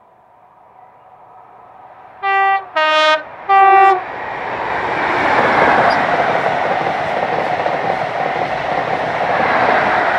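InterCity 125 High Speed Train sounding its two-tone horn in three short blasts, high, low, high, then passing at speed with a loud rush of wheels and power car that builds to its loudest a few seconds later.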